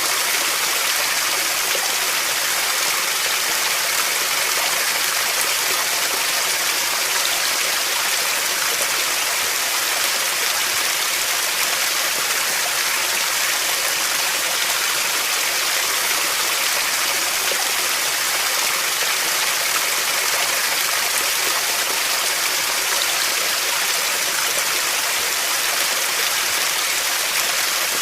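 Running water: a steady, unbroken rush, more hiss than rumble.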